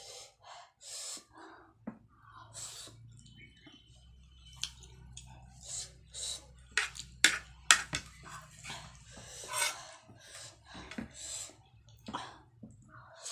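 Close-miked mouth sounds of someone eating ramen noodles: slurping, chewing and wet lip smacks. The loudest part is a cluster of sharp smacks in the middle.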